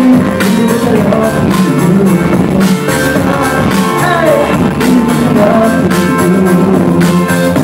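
Loud live club music: a male voice singing over a steady beat.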